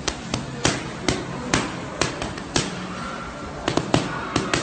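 Boxing gloves smacking focus mitts: about a dozen sharp slaps, mostly in quick combinations of two or three punches, with short pauses between.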